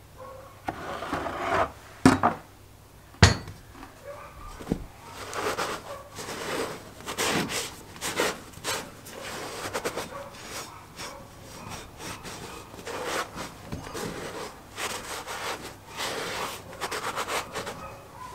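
A cloth towel rubbing and wiping the inside of a cast iron Dutch oven in repeated strokes. Two sharp knocks come about two and three seconds in.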